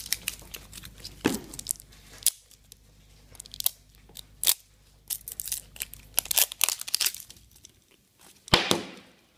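Foil wrapper crinkling and tearing in scattered sharp crackles as it is peeled off a plastic surprise egg, with a louder crackle near the end.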